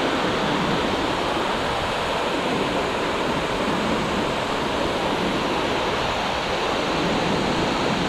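Steady rushing of a tall mountain waterfall falling in steps onto rocks, mixed with the shallow stream below it running over stones. The level stays even throughout, with no breaks.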